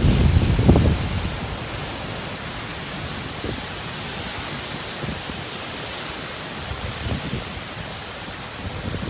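Typhoon wind and rain: a steady rushing hiss, with a strong gust buffeting the microphone in the first second and weaker gusts later.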